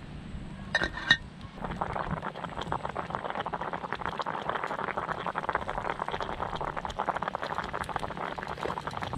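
A metal pot lid clinks twice about a second in. Then fish soup boils hard in the open camping pot over a wood fire: a dense, steady bubbling crackle.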